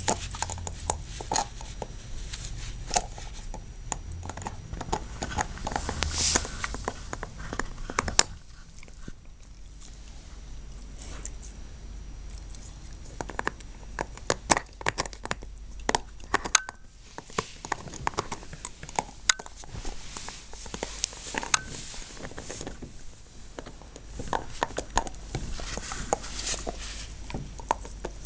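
Border Collie gnawing a chew bone: irregular crunching and sharp clicks of teeth on the bone, easing off for a few seconds about eight seconds in.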